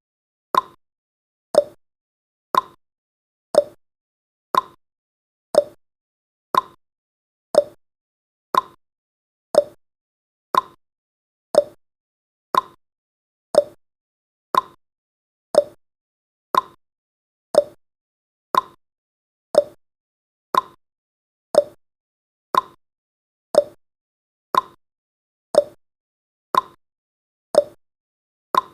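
Clock tick-tock sound effect keeping time for a countdown: one short tick about every second, alternating between a higher and a lower tick.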